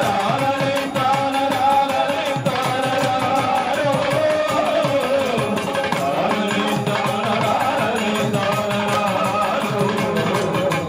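Kuthiyottam ritual song: voices singing a folk melody over a steady rhythm of hand drums, accompanying the Kuthiyottam dance.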